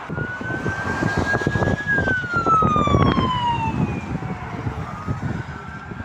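Ambulance siren sounding one long wail that rises slightly, then falls in pitch for about two seconds, over the noise of passing motorway traffic.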